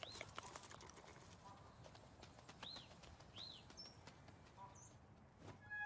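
Faint woodland ambience: a few short chirping calls that rise and fall in pitch, about three of them, with soft clicks near the start.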